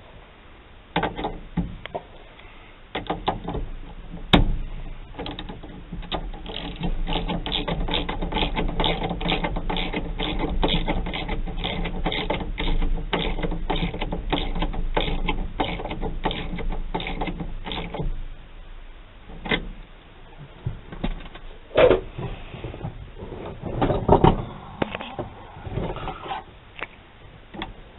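Ratchet turning the nut of a lock-plate compressor tool on a GM steering column, clicking at about three clicks a second for some twelve seconds as the tool presses the lock plate down so the snap ring can be fitted. Several separate metal clicks and knocks follow near the end.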